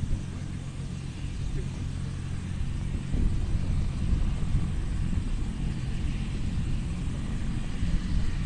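Doctor helicopter running on the ground before liftoff: a steady low hum from its engines and rotor, with a rougher low rumble that grows louder about three seconds in.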